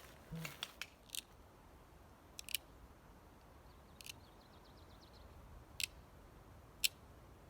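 Scattered sharp clicks and snaps as the wooden hand-drill kit is handled, a cluster near the start and single ones every second or so after, with a faint rapid ticking about four seconds in.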